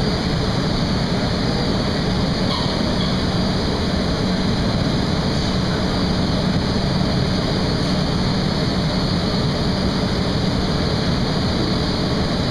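Steady noise of a glassworks floor: the gas-fired furnaces (glory holes) that keep the crystal at working heat, and machinery running, with a constant low hum.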